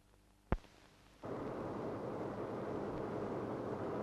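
A single sharp click, then about a second later a steady low rumbling noise of a railway yard sets in and carries on.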